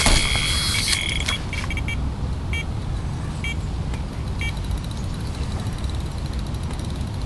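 Electronic carp bite alarm signalling a run: a continuous high beeping tone cuts off about a second in, then single beeps follow at irregular intervals as line is still pulled through it. A steady low rumble lies underneath.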